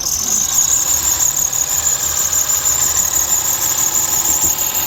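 Honda Pilot's V6 engine running with a loud, steady high-pitched squeal over it, starting suddenly. The owner takes it for a sign that the engine is finished.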